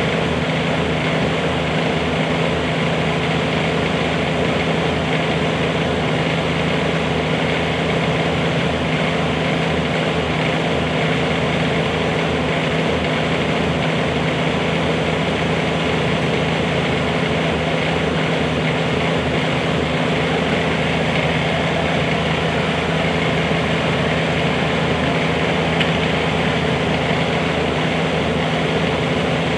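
Bobcat 320 mini excavator's diesel engine idling steadily.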